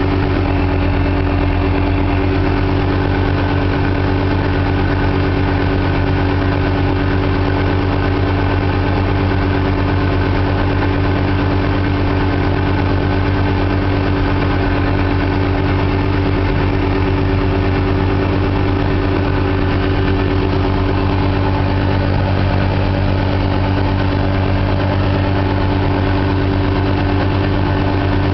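Mazda RX-7 FC's 13B twin-rotor turbo rotary engine idling steadily at an even pitch.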